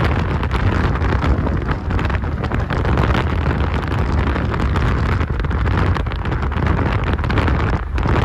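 Wind buffeting the microphone and road noise from inside a moving car, a steady low rush with no pauses.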